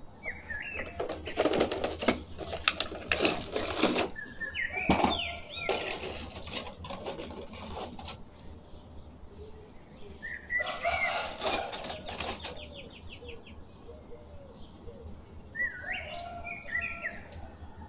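Clear plastic blister packaging of toy action figures crinkling in several bursts as the figures are handled and pulled out, with birds chirping in the background.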